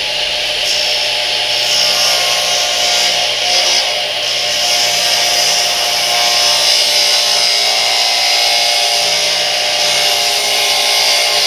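Radial arm saw running and ripping 3/4-inch plywood: a steady, loud cutting noise over the motor's hum.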